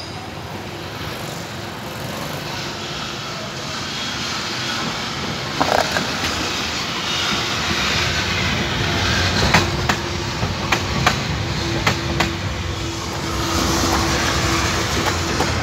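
Yellow articulated tram coming in and passing close by, its running noise building steadily. About halfway through comes a run of sharp clicks and knocks from the wheels on the track, and a steady hum sets in during the passage.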